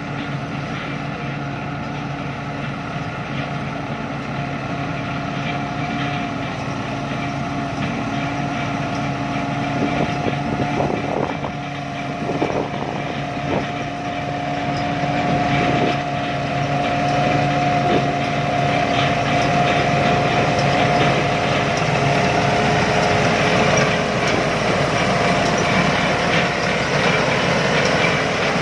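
Rice combine harvester running, its engine giving a steady drone that grows louder toward the end, with a few brief knocks around the middle.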